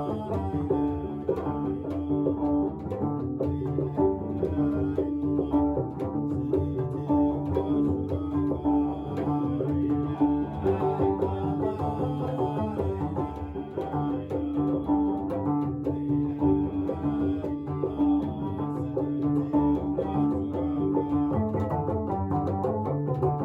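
Music played on plucked string instruments, with one steady held note running under the melody.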